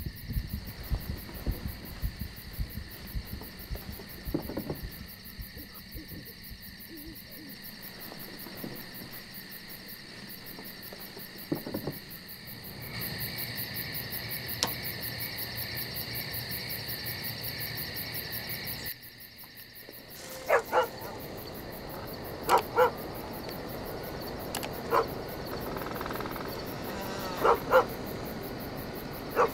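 A dog barking in short pairs of barks, starting about two-thirds of the way in and repeating every two seconds or so.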